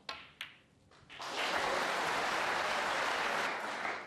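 Two sharp clicks of snooker balls being struck, then audience applause from about a second in, fading out near the end.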